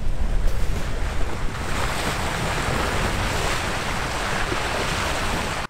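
Water rushing along a moving sailboat's hull, with wind buffeting the microphone. The hiss of the water grows louder about a second and a half in.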